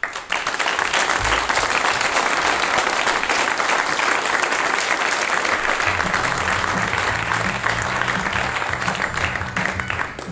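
Audience applauding steadily. About six seconds in, music with a bass line comes in under the applause.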